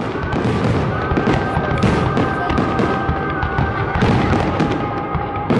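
Aerial fireworks bursting: dense, continuous crackling and popping with repeated bangs.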